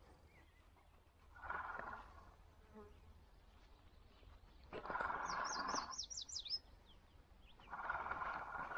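A flying insect buzzing close to the microphone, passing three times for about a second each. A songbird sings one quick, rapidly repeated trilled phrase in the middle.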